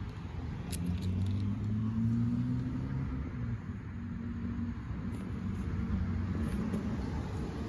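A motor running with a low, steady hum and rumble, its pitch drifting slightly.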